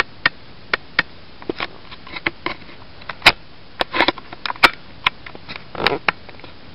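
Bakugan ability cards and packaging being handled: irregular light clicks and taps, with a short rustle about four seconds in and another near the end.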